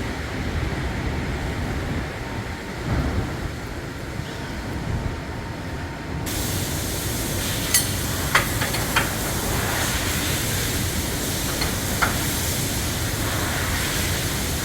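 Body-shop noise: a steady low rumble, joined about six seconds in by a sudden loud hiss like escaping compressed air, with a few sharp metallic clicks after it.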